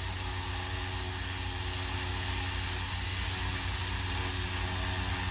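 Pressure washer running steadily: the motor-driven pump hums underneath a constant hiss of the water jet spraying the boat's hull.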